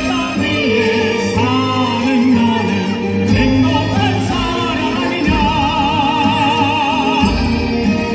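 A classical-crossover vocal trio (soprano, tenor and Korean traditional folk singer) singing into microphones over a recorded accompaniment track. About two-thirds of the way through, one voice holds a long high note with a wide, even vibrato for about two seconds.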